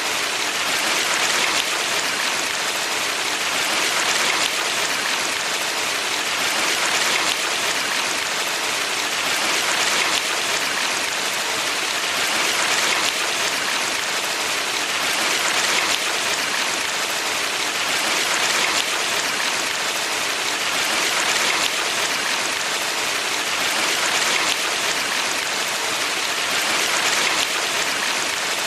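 Valley stream water rushing in a steady, dense hiss, swelling and easing gently every few seconds.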